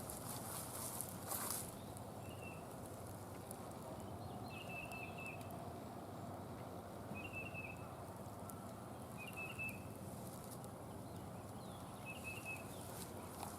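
A bird calling faintly outdoors: short chirped phrases repeated every two to three seconds over a low, steady background hush. A few light clicks, like steps, come in the first second and a half.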